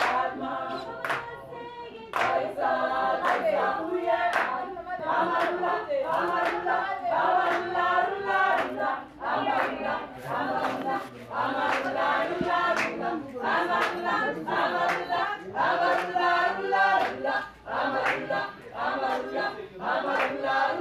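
A choir singing with steady hand claps keeping the beat.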